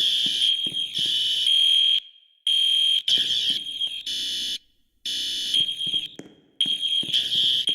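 Fire alarm horns sounding a high, steady tone in blasts of one to two seconds with short breaks, each blast echoing briefly as it stops, while the school's fire alarm system is being tested.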